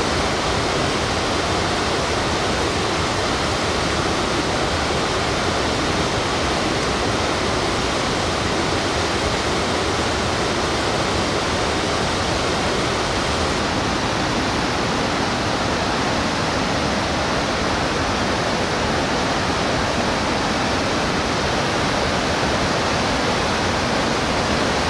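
Steady rush of a fast, white-water mountain river running over rocks.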